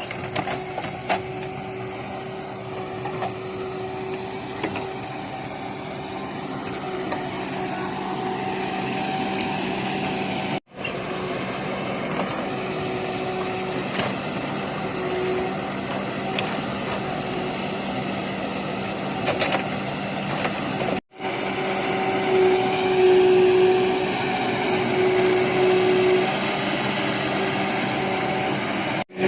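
Tata Hitachi backhoe loader's diesel engine running steadily as it digs soil, with a constant low drone. The sound drops out abruptly twice, about a third and two-thirds of the way through, and is louder in the last third.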